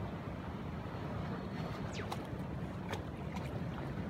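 Wind rumbling on the microphone over the steady rush of surf, with a few brief light splashes from a dog wading in a shallow rock pool.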